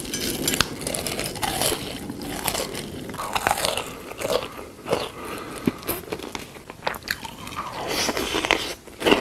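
Close-miked biting and chewing of crisp food, a steady run of crackling crunches one after another.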